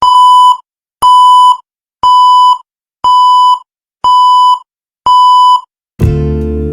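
Six short electronic beeps at one steady high pitch, evenly spaced one per second, each cutting off cleanly into silence. Music with guitar comes in loudly near the end.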